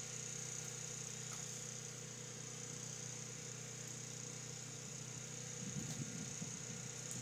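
An engine running steadily at idle, a low even hum with a constant high-pitched hiss over it; a faint uneven low rumble joins near the end.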